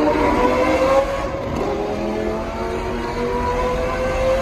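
Lamborghini engine accelerating through a tunnel, heard from inside the cabin. Its pitch climbs steadily, with a gear change about a second in, then climbs again.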